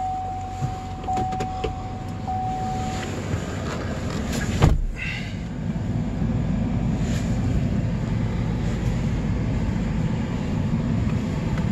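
GMC pickup truck running, heard from inside the cab as a steady low rumble while the truck is maneuvered. A steady high tone sounds for the first three seconds, and a single thump comes about four and a half seconds in, after which the rumble is a little stronger.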